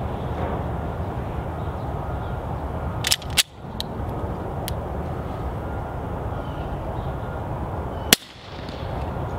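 A suppressed 9mm pistol firing subsonic 147-grain ammunition fires one sharp, muffled shot near the end. About three seconds in, two quick clacks and a couple of lighter clicks come as the slide is worked by hand, because the slide lock keeps the breech shut through the shot. A steady outdoor hiss runs underneath.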